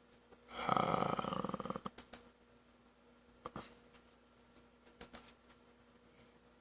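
A short buzzy rattle of rapid fine pulses for about a second and a half, starting half a second in, then a few scattered sharp clicks from a computer mouse or keyboard, two of them close together about two seconds in and two more about five seconds in.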